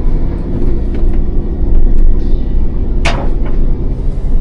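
Engine and road rumble of a feed delivery vehicle on the move, heard steadily from inside the cab. A short, sharp hiss-like noise stands out about three seconds in.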